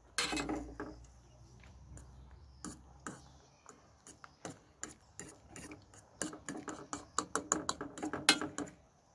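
A metal fork stirring spaghetti in a stainless-steel saucepan of boiling water, clicking and scraping against the pan in irregular ticks that come thickest in the second half.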